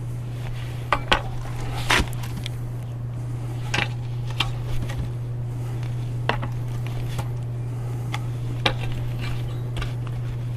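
Split firewood pieces knocking together in short, sharp, scattered clacks as logs are tipped over and handled, the loudest about two seconds in.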